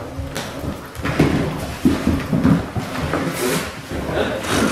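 Eight-week-old Belgian Malinois puppies scuffling in a pile on a dog bed, tugging and shaking a fabric bag: rustling and scrabbling with several knocks, the sharpest near the end.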